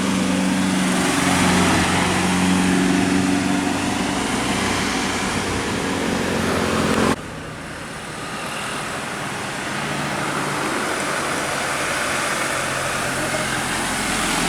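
Road traffic with a vehicle engine running steadily. The sound drops off suddenly about halfway through and continues as quieter passing-traffic noise.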